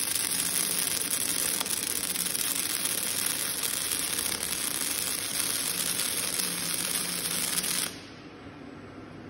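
Robot arc-welding torch (wire-fed, MIG-type) welding steel plate: the arc runs with a steady, dense hiss and cuts off suddenly about eight seconds in as the weld ends, leaving a much quieter steady hum.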